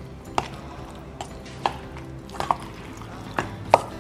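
Metal spoon clinking and scraping against a stainless steel bowl while stirring raw chicken pieces in marinade, with about seven sharp, irregularly spaced clinks.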